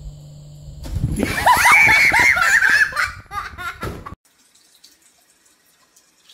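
A person breaking into loud, high-pitched laughter about a second in, with some clattering, cut off abruptly about three seconds later. Before it, a faint steady hum.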